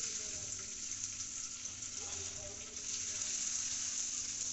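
Butter sizzling steadily in hot caramelized sugar in a nonstick pan while it is stirred with a silicone spatula, the first stage of making caramel sauce.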